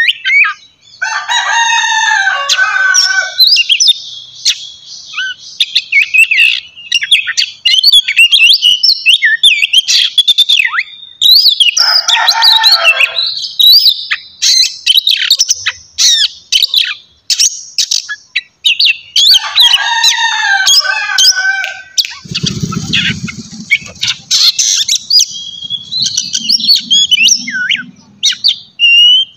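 Oriental magpie-robin singing loudly: a fast, varied run of high chirps and whistles, broken three times by harsh rasping stretches. A short low dull burst sounds about three-quarters of the way through.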